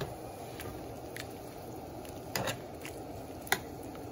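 Shrimp in a butter and white-wine sauce simmering in a skillet, a low steady sound, with a few sharp clicks and knocks of a utensil against the pan, the loudest a short double knock about two and a half seconds in.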